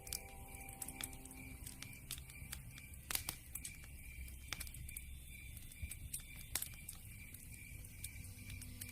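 Campfire crackling: scattered pops and snaps over a low rumble, the loudest snaps about three seconds in and again past six seconds. Soft background music fades out about two seconds in and returns near the end.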